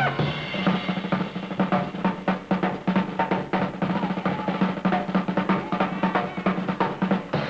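Drum kit solo in a Dixieland jazz number: quick, busy snare and tom strokes with bass drum, and no horns playing.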